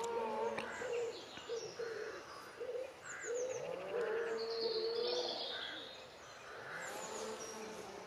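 A mix of estuary waterbirds calling at once, with many overlapping lower calls and brighter high chirps.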